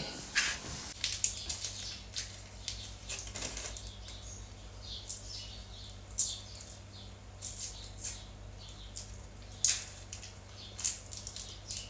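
Intermittent rustling and crinkling of shopping bags and packaging being handled, in short irregular bursts over a faint steady low hum.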